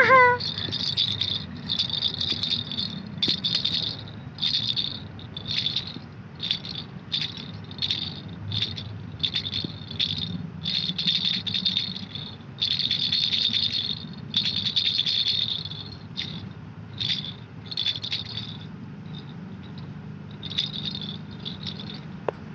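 Pink plastic baby rattle shaken in short bursts, about one shake a second, the shakes thinning out over the last few seconds.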